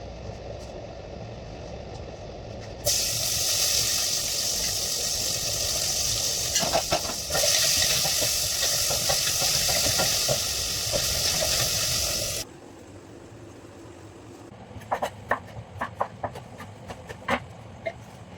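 Food sizzling loudly in a hot pan, starting suddenly about three seconds in and cutting off abruptly about twelve seconds in, over a low steady rumble. A few light clicks follow near the end.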